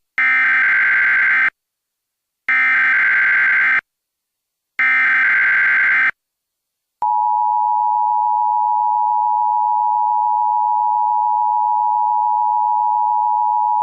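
Emergency Alert System tones: three bursts of SAME header data, each just over a second long with short silent gaps between, then about seven seconds in the steady two-tone EAS attention signal starts and holds.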